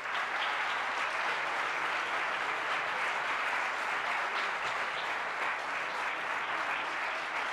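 A crowd of spectators applauding steadily, a dense sound of many hands clapping at once.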